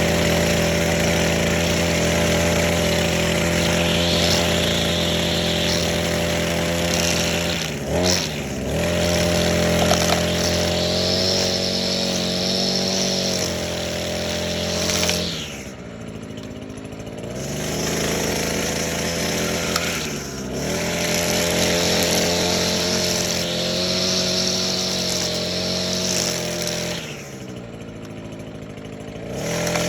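Echo SRM-225 string trimmer's small two-stroke engine running at high speed. Four times it drops back toward idle and revs up again: twice briefly, and twice for a couple of seconds, once in the middle and once near the end.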